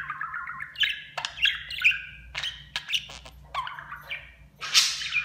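Budgerigar chattering in quick runs of chirps, warbles and sharp clicks. Near the end comes one loud, harsh call.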